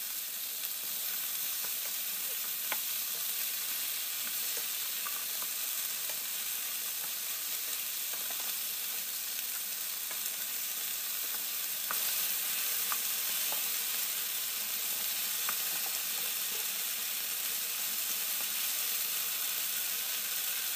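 Chicken wings, onion, potato and carrot sautéing in oil in a non-stick frying pan over medium-low heat: a steady sizzle, with a few light scrapes and taps of a wooden spatula stirring.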